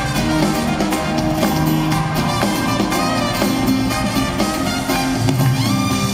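Live acoustic band music: an instrumental passage of the song with no singing, held notes over a steady beat.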